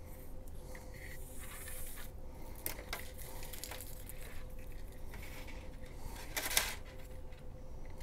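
Flexible LED strip being handled and untangled: light rustling with small clicks and taps, and one short louder rustle about six and a half seconds in.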